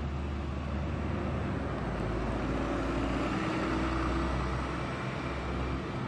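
Double-decker city bus's engine running as it drives along a street, a steady low hum with traffic noise.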